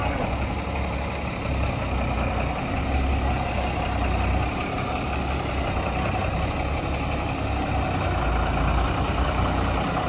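Diesel engine of a Tata tipper truck running at low speed as the truck pulls slowly forward, a steady low rumble.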